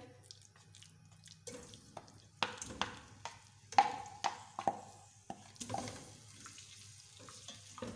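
Marinated chicken pieces dropped from a bowl into a nonstick pot with oil: a string of irregular clinks and wet knocks as the pieces land and the bowl and spatula tap the pot, the loudest about halfway, with a faint sizzle of frying.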